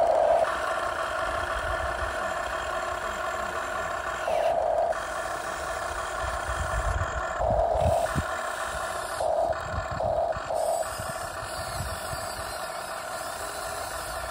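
Electric drive motors and gearboxes of Huina RC construction vehicles whirring, cutting out and starting again several times as the controls are worked, with low rattling and clatter underneath.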